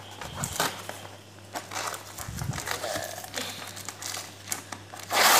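Cardboard box and its packing tape being handled: irregular crinkling and crackling as hands press the flaps and pull at the cut tape, with a louder scraping rustle near the end.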